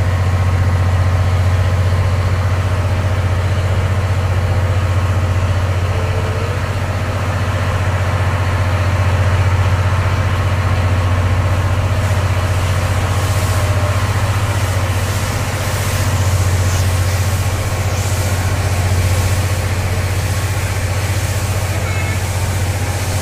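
Steady low mechanical hum of the SL Paleo Express train, heard from inside a passenger coach, with an even rumble over it.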